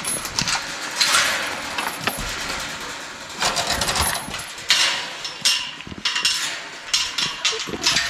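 Metal gate chain rattling and clinking as it is unhooked and worked loose from a wire-fence gate, with many sharp clicks, busiest in the second half.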